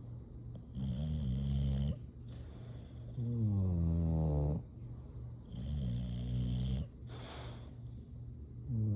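Sleeping bulldog snoring in a slow, steady rhythm: three long, low, rattling snores, each about a second or more, with quiet breathing between them and a fourth snore starting at the very end. A short breathy hiss comes between the last two snores.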